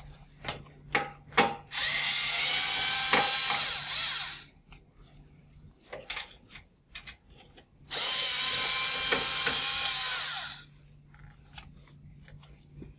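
Cordless electric screwdriver running twice, each run about two and a half seconds with a motor whine, backing out the screws that hold terminal blocks to a metal relay chassis. A few light clicks come first.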